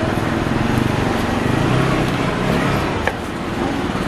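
Steady street traffic noise with a low hum, and a single sharp knock of a kitchen knife on a wooden cutting board about three seconds in.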